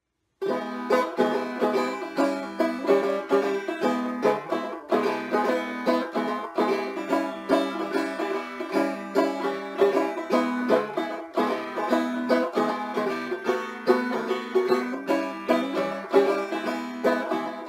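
A five-string banjo played solo: a quick, steady run of picked notes that starts suddenly about half a second in.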